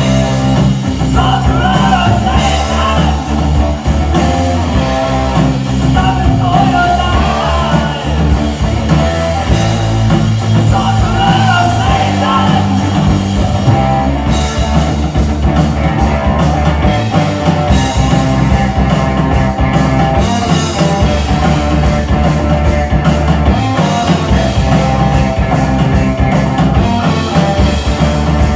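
Rock band playing live at full volume: electric guitars and a drum kit driving a heavy metal song without a break.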